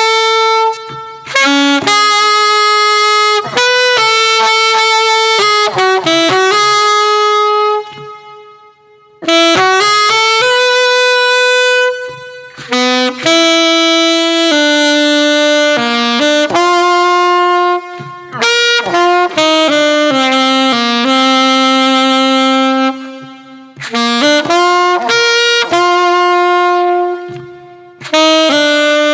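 Yamaha YAS-23 alto saxophone playing a slow, lyrical melody of held notes, in phrases broken by short pauses for breath.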